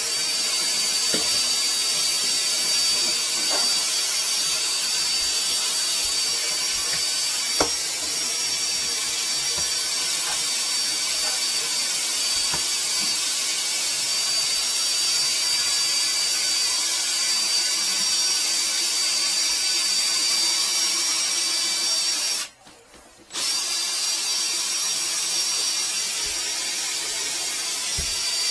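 Flex-shaft drain cleaning machine running steadily, spinning its shaft inside a clogged drain line, with a high whine over the motor noise. It cuts out for a moment about 22 seconds in, then starts again.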